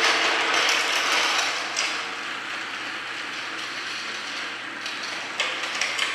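Battery-operated plastic toy train motor whirring steadily with a gear clatter, louder for the first couple of seconds. A few sharp plastic clicks near the end as the playset's parts are handled.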